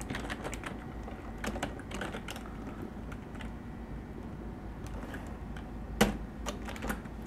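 Typing on a computer keyboard: irregular bursts of keystrokes, with one louder key strike about six seconds in.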